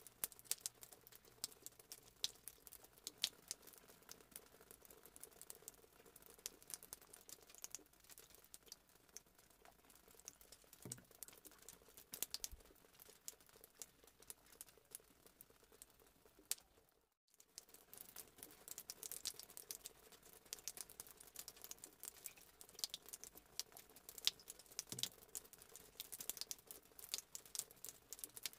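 Faint handling noise from plastic cups: irregular light clicks and crackles over a low steady hum, dropping out briefly about 17 seconds in.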